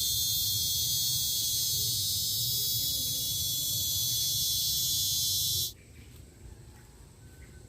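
Loud, steady, high-pitched insect chorus over a low rumble. It cuts off abruptly about five and a half seconds in, leaving only a faint background with a few small clicks.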